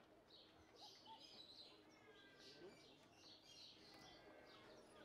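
Near silence: faint room tone with scattered faint, high chirps.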